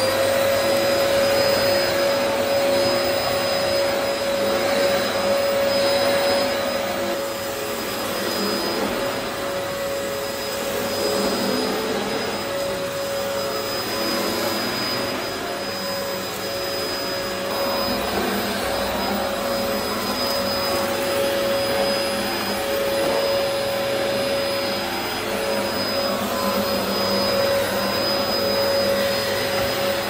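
Dyson DC04 upright vacuum cleaner running while vacuuming carpet: a steady rush of air under a constant motor whine.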